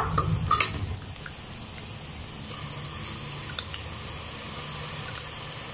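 Sliced onions sizzling steadily in hot oil and ghee in a pressure cooker, with a couple of light clinks of the metal ladle against the pot in the first second.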